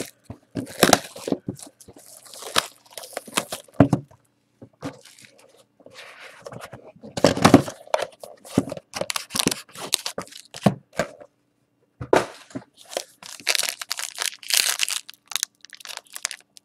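Plastic wrapping being crinkled and torn off a trading-card box by hand, then a foil card pack ripped open, in an irregular run of crackles and tears. There is a quieter pause around five seconds in.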